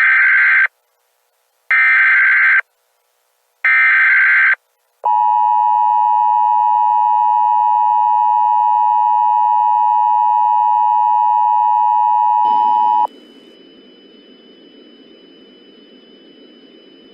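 Emergency Alert System tones: three short bursts of screeching digital SAME header data, then the steady two-tone EAS attention signal held for about eight seconds. It cuts off abruptly to a faint low hiss.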